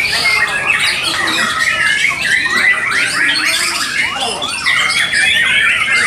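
Many caged white-rumped shamas (murai batu) singing at once: a dense, unbroken chorus of rapid whistles, chirps and chattering phrases overlapping each other.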